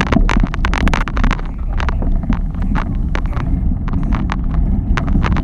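Wind buffeting the microphone of a bike-mounted camera, a steady low rumble, with frequent irregular clicks and rattles from the ride.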